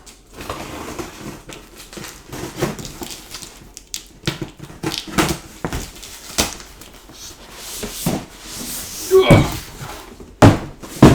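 A parcel being handled and handled at: irregular rustling, scraping and small knocks, with a few louder thumps near the end.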